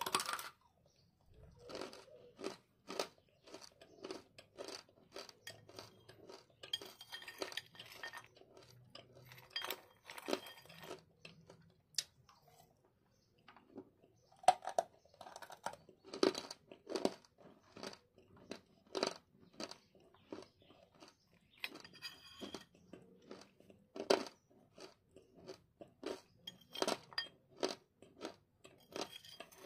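Close-up chewing of crunchy baked clay chunks: a run of sharp crunches, about two a second, with now and then a metal spoon clinking against a ceramic bowl.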